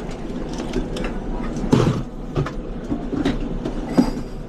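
Busy restaurant kitchen during service: scattered knocks and clatter of plates, pans and utensils over a steady low hum, with one louder clatter just before two seconds in.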